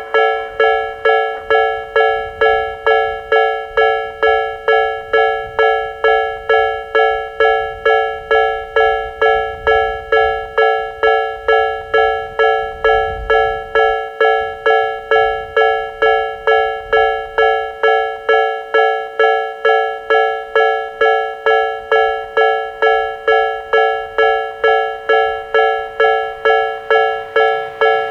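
Japanese level-crossing alarms ringing: electronic chime tones struck just under twice a second, each dying away before the next. The crossing's two alarm types, the Nikko type and the 'pon-pon' Tojo type, sound together in exact step.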